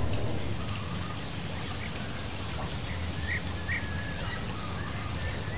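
Steady outdoor ambience: an even rain-like hiss with a few short bird chirps near the middle.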